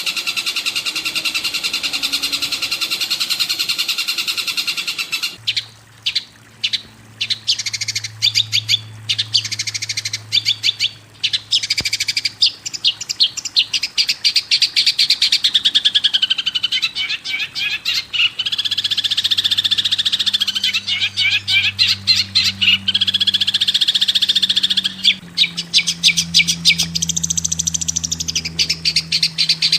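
Songbird singing a fast, chattering song: a dense run of rapid repeated trill notes and buzzy phrases, the kind of song played as a tutoring track for caged long-tailed shrikes. A low steady hum runs underneath.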